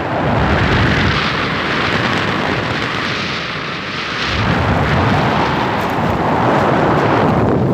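Wind rushing over the microphone of a moving vehicle, mixed with road rumble. It is loud and steady, easing briefly about three to four seconds in.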